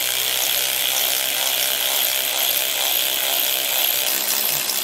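Hand-held cordless power tool running steadily with a whir, spinning lock nuts down the long carriage bolts of an axle-strap bracket.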